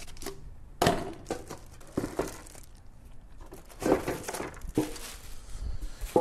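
Unpacking sounds: cardboard inserts and plastic wrap crinkling as the parts of a new electric grill are handled. Several sharp knocks sound as the heating element and the metal drip tray are lifted out.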